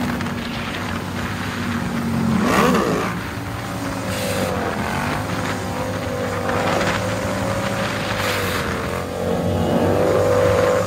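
Motorcycle engines running at freeway speed. About two and a half seconds in, one engine revs up quickly and drops back, then runs on with a steady, slightly wavering pitch as the nearby bike is held up on its back wheel.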